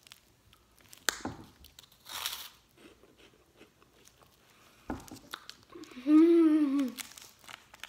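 A person bites into a crunchy snack, with a crack about a second in, then chewing and the odd wrapper rustle. About six seconds in comes a long hummed "mmm" of enjoyment that rises and falls in pitch, the loudest sound here.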